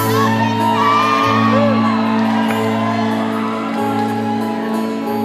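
Steel-string acoustic guitar strumming sustained chords in an instrumental passage between sung lines. Audience whoops and gliding whistles ring out over it in the first two seconds.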